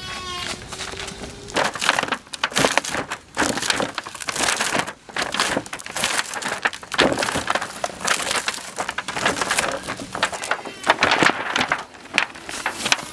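A large stone rocked and rolled by hand over plastic sheeting, paper and cardboard, used as a makeshift press to print a drypoint plate: irregular crunching and scraping strokes, one after another.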